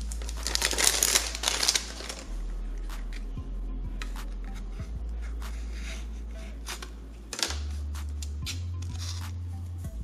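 A blind-bag wrapper is torn and crinkled open for a couple of seconds near the start. Scattered light clicks and taps follow as a small cardboard box and tiny plastic cat figures are handled. Background music with a steady bass line plays throughout.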